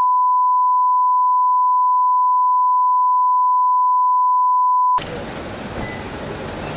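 Steady 1 kHz line-up test tone played with SMPTE colour bars, a single unwavering beep that cuts off abruptly about five seconds in, giving way to quieter background noise.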